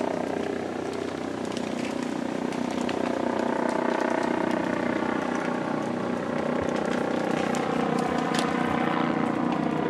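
Boat engine running steadily with an even drone.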